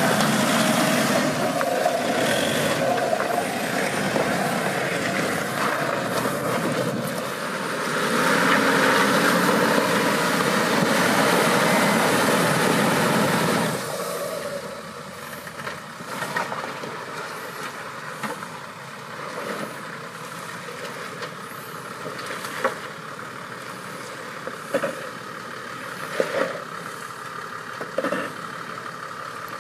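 Off-road 4x4's engine running loud, dropping suddenly about halfway through to a quieter steady run, with a few sharp knocks and clunks near the end.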